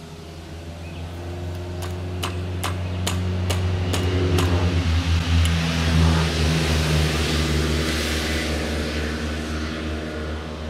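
A motor vehicle passing by, its engine hum swelling to a peak about halfway through and then fading. In the first half, a run of about ten sharp clicks.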